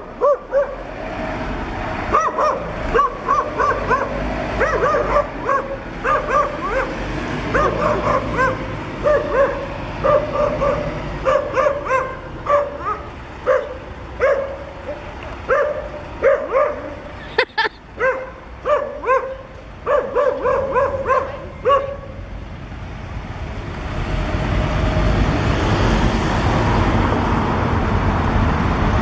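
A dog barking over and over, often several barks a second, until about three quarters of the way through. After that a steady vehicle noise swells.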